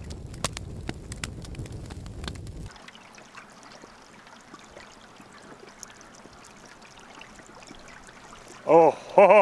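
River water running steadily, with a low rumble and a few clicks over it for the first couple of seconds. A man's voice breaks in loudly near the end.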